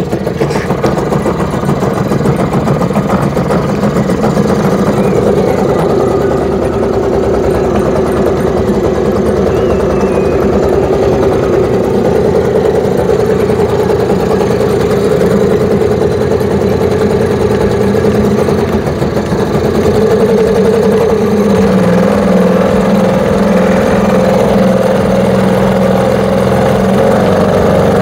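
Mercury 3.3 HP outboard motor running steadily. About twenty seconds in it speeds up a little and gets louder as the throttle is opened.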